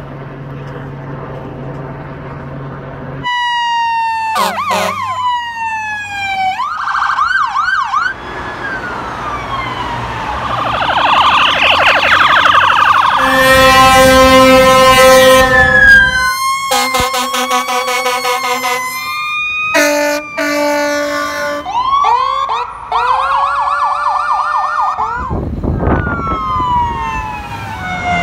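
A helicopter's steady drone for about three seconds, then a series of emergency-vehicle sirens cut one after another: wails, fast yelps and warbles, each switching abruptly to the next.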